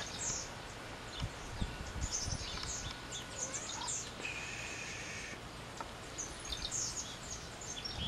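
Many short, high chirps and calls from unseen birds in the tree canopy, overlapping one another, with one steady higher note held for about a second near the middle. A few low thumps sound in the first half.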